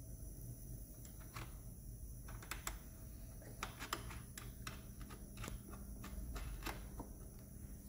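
Scattered light clicks and taps of a hand tool and metal parts while the carbon-fibre exhaust silencer is fastened to its hanger bracket on a sport motorcycle, over a faint low hum. The clicks come irregularly and are thickest through the middle of the stretch.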